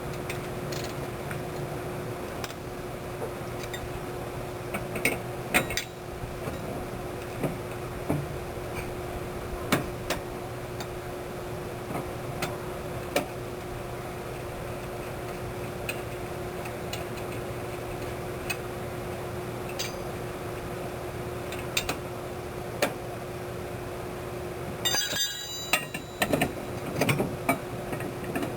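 Scattered metallic clinks and knocks of hand work on metal, with a busier run of clatter near the end, over a steady mechanical hum.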